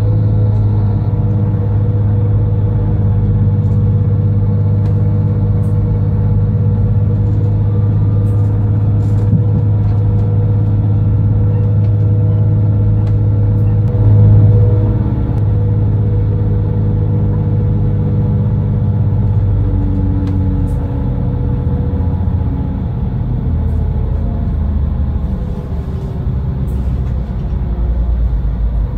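TER diesel railcar running along the line, heard from inside the passenger carriage: a steady engine drone over the rumble of the running gear. A brief louder swell comes about halfway through, and in the last third the engine note drops lower.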